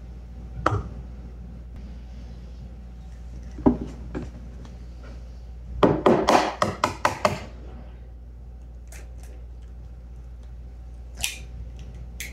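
Eggs being cracked and separated by hand over a plastic bowl on a wooden table: a few single knocks, a quick run of about eight sharp taps near the middle, and one more sharp crack near the end as another egg is broken open.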